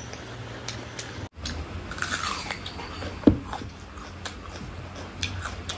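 Close-miked eating of mutton curry: biting and chewing, with wet mouth noises and small clicks. One loud sharp knock about three seconds in, and a brief dropout a little over a second in.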